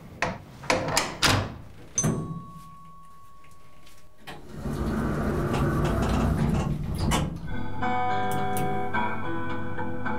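Four quick, loud bangs on an apartment's front door, then a sharper bang followed by a steady high tone for about two seconds. From about halfway a low swell rises and turns into music with plucked strings.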